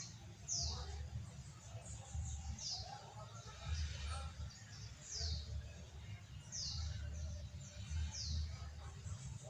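A bird repeating a short, high call that falls in pitch, five times over a steady low rumble.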